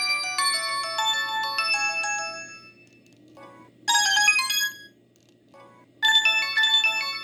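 Samsung SGH-E200 phone's built-in polyphonic ringtones. One melody of steady notes fades out about two and a half seconds in. Two short bursts of notes follow, about four and six seconds in.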